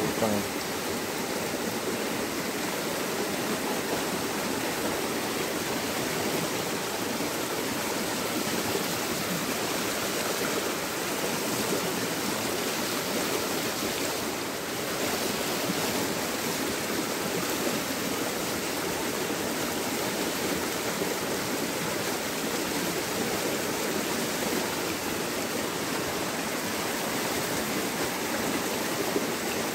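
A small stream rushing and splashing over a low rocky drop: a steady, even rush of water.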